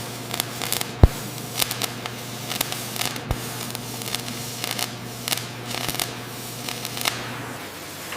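Irregular small clicks and scrapes over a steady low hum; the hum stops near the end.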